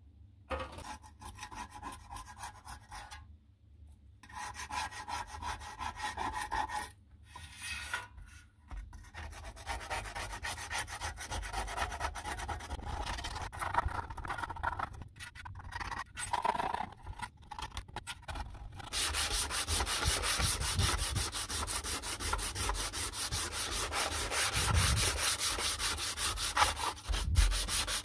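Rusty sheet-steel panel being sanded by hand, abrasive scraping over the metal in stop-start strokes at first, then in continuous fast back-and-forth strokes from about two-thirds of the way in.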